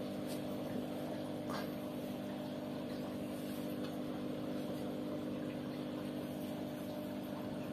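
Steady low mechanical hum of a running motor, even in level throughout, with a few faint taps.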